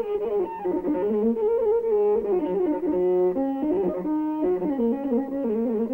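Instrumental background music: a melody of short stepped notes over a steady lower part, with no singing.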